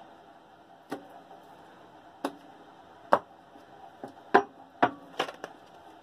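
Tarot deck being shuffled by hand: a series of sharp, irregular card slaps and taps, coming closer together in the second half.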